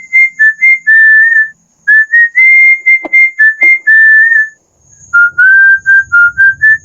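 A tune whistled by a person: clear notes stepping between a few pitches, in three phrases with short breaks between them.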